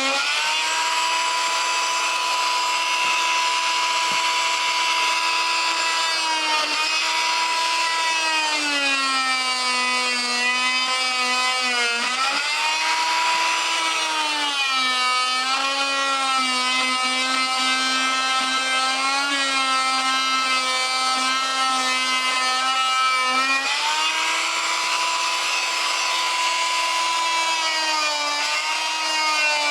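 Oscillating multi-tool with a coarse-toothed hardwood blade cutting grooves into rubber turf tires, a steady high motor whine. The pitch sags several times as the blade bogs in the rubber, then climbs back.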